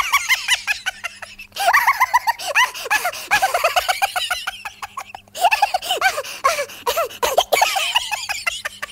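A woman laughing hard in long runs of rapid, high-pitched giggles, pausing briefly for breath a few times.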